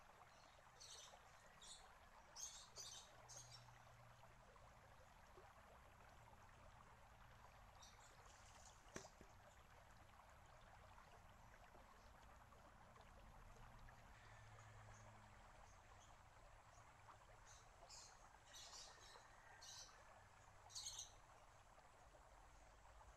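Faint trickle of water with one sharp clack about nine seconds in, the shishi-odoshi's bamboo rocker arm striking its rock. Small birds chirp in quick high series near the start and again toward the end.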